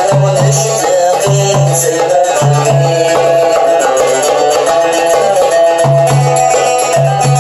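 Kabyle folk music on a mandole, its strings plucked in a busy melody, over a low pulsing beat that comes in rhythmic groups.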